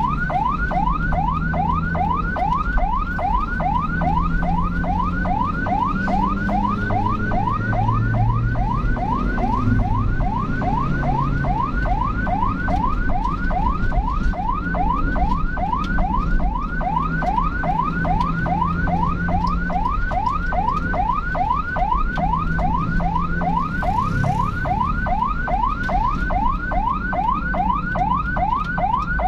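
Electronic emergency siren in a rapid yelp, about four sweeps a second without a break, over the low running of a vehicle engine.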